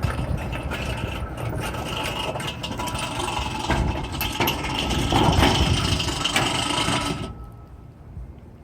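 Automatic gate running under its opener motor with its wheel off the track, the gate dragging and scraping across concrete. It stops about seven seconds in.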